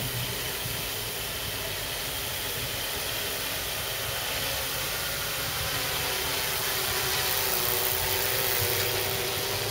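Yuneec Typhoon Q500 quadcopter hovering: a steady hum and whir of its four motors and propellers, growing a little louder near the end.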